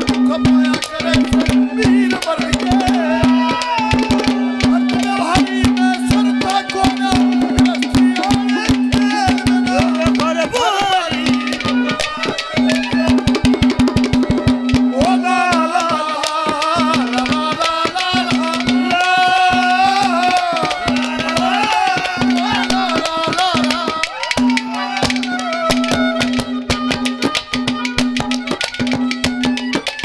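Instrumental interlude of live Haryanvi ragni folk music: hand drums played in a fast, dense rhythm under a gliding melody line, over a steady held drone note.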